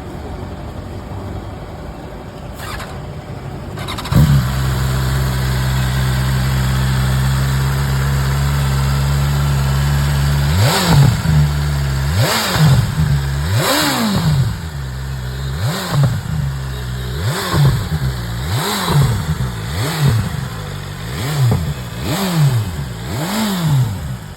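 BMW S1000RR inline-four engine on its stock exhaust, starting about four seconds in and idling steadily. From about ten seconds in it is revved again and again, with a dozen or so short throttle blips, each rising and falling back to idle.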